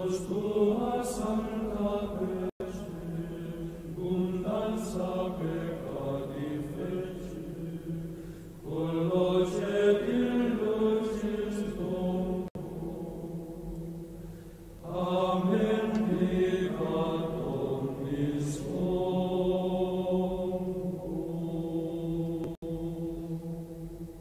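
Recorded choral chant: slow sung phrases with long held notes, several phrases with short breaks between them.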